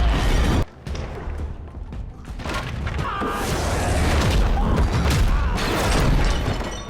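Martial-arts battle sound effects over dramatic film music: a deep boom that cuts off suddenly about half a second in, then a building din of crashes and impacts.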